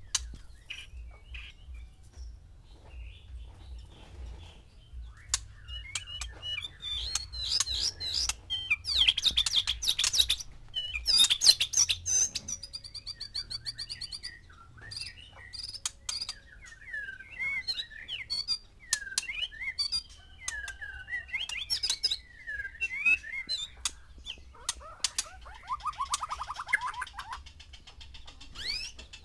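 White-rumped shamas singing and calling: a string of varied whistled phrases, sharp chirps and quick trills, loudest about nine to twelve seconds in.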